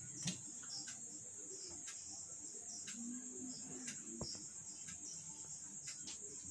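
Faint taps and short scrapes of a marker drawing on a whiteboard, over a steady high-pitched chirring in the background.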